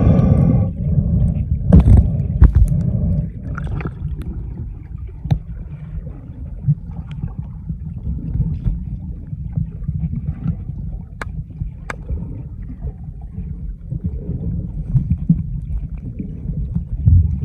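Underwater sound through a submerged camera while snorkeling: a steady low rumble of moving water with scattered faint clicks. It is louder and more churning for the first three seconds, then settles.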